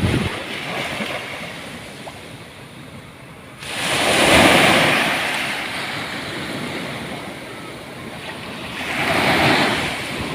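Ocean surf on a beach: a steady wash of water with a wave breaking about three and a half seconds in and another near the end.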